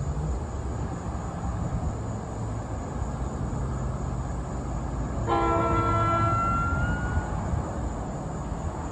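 Train horn sounding one short, loud chime blast of several notes about five seconds in, over a steady low rumble of the train.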